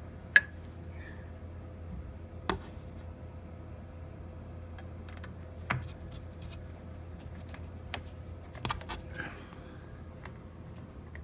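A screw being driven by hand with a screwdriver into a ceiling fan's light kit: irregular small clicks and light scraping, with a sharp click about half a second in and another about two and a half seconds in, over a steady low hum.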